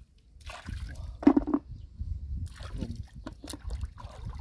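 Shallow muddy water sloshing and splashing in short irregular bursts, with drips; the loudest splash comes about a second in.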